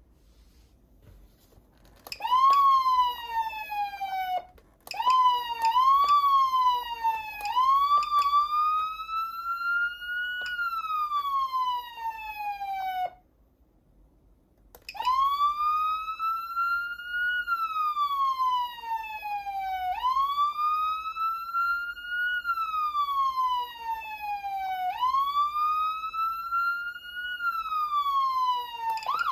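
Whelen Sencom Gold electronic siren amplifier sounding American-style siren tones. After a quiet start come a few short rising and falling sweeps, then a break of about two seconds, then a slow wail that rises and falls about every five seconds.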